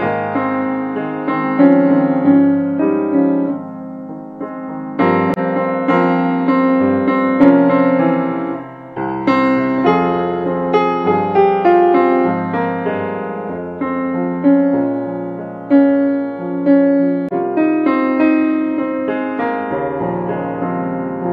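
Background piano music: a steady flow of struck notes and chords, each ringing and fading.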